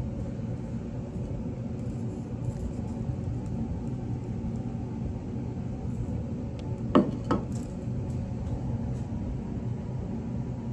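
Two sharp knocks about a third of a second apart, about seven seconds in, as the glass culture flask knocks against a surface, over a steady low hum.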